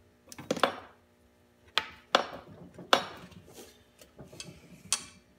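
Hands working a silicone radiator hose and its clamp into place on a dirt bike: about six sharp clicks and knocks with rustling between them.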